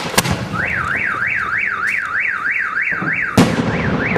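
Two sharp firecracker bangs, then a car alarm siren warbling up and down about three times a second, cut across by another loud bang a little over three seconds in.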